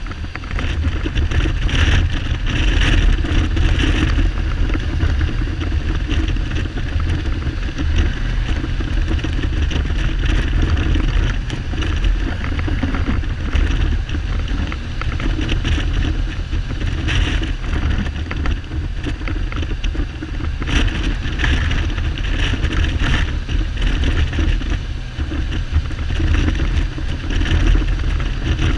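Kawasaki Z1300 inline-six motorcycle engine running on the move, under heavy wind buffeting on the microphone. The engine is not firing on all cylinders, which the owner puts down most likely to the carburettors fouling the spark plugs.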